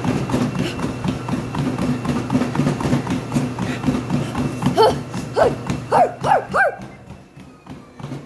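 ProForm treadmill running at about 10 mph, its motor humming with a thin high whine, under quick, even running footfalls on the belt. About halfway through come five short, high yelping cries, and near the end the footfalls fade and the whine drops slightly in pitch.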